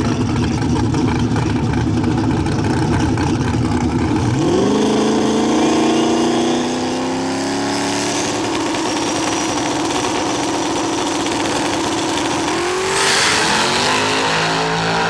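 Drag race car launching about four seconds in, engine pitch climbing sharply as it pulls away down the strip, then running at a steady pitch. About thirteen seconds in the engine pitch rises again with a burst of noise.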